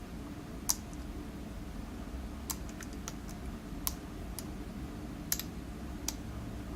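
Lock pick raking the pin stack of a challenge lock with serrated pins, giving light, irregularly spaced metallic clicks, about eight of them.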